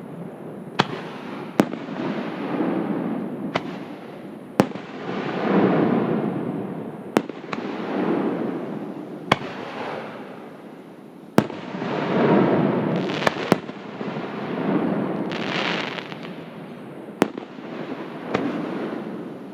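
Aerial fireworks shells bursting close by, about a dozen sharp bangs spaced one to two seconds apart, each trailed by a long rolling rumble. There are a couple of hissing, crackling stretches about two-thirds of the way in.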